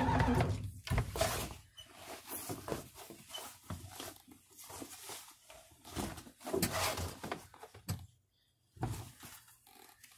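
A vehicle engine running, then stopping under a second in. After that come irregular rustling, scuffing and soft thumps of feet slipping out of moccasin slippers and of clothing being handled.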